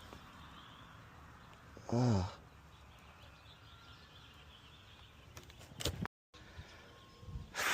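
Faint steady background noise, with a short hummed vocal sound about two seconds in and a few light clicks around five to six seconds.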